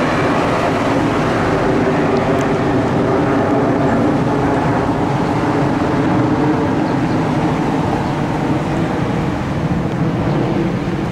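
Steady street traffic noise: vehicles running past with a constant engine hum.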